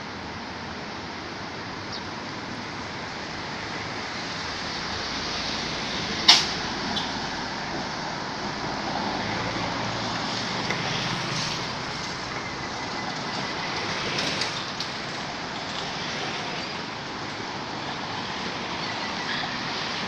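Steady rushing outdoor background noise, with one sharp click about six seconds in.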